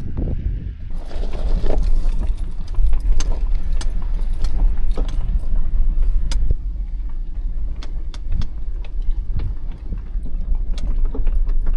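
Car driving over a rough, bumpy dirt road: a steady low rumble with frequent sharp knocks and rattles as it jolts over the ruts.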